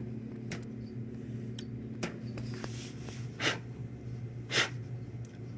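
Light rustling and faint clicks from hands brushing a cricket off, over a steady low hum. Two short, louder swishes come about three and a half and four and a half seconds in.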